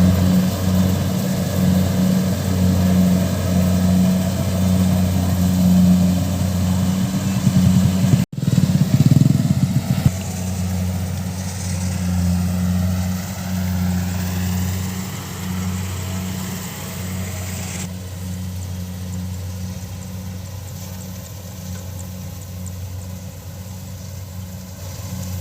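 Combine harvester engine running steadily with a deep, even hum. The sound cuts off abruptly about eight seconds in and comes back louder for a moment, and the background changes suddenly again near eighteen seconds.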